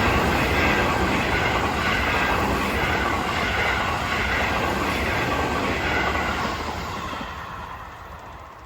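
A Seibu Line electric train passing close by, its wheels rumbling on the rails, loud through most of the pass and dying away over the last two seconds or so.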